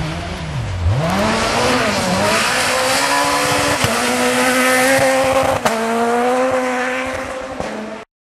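Rally car passing at speed on a gravel forest stage: the engine note dips once about half a second in, then climbs and holds high under full throttle, with the hiss of tyres on gravel. There is a single sharp crack a little past halfway. The sound fades, then cuts off suddenly just before the end.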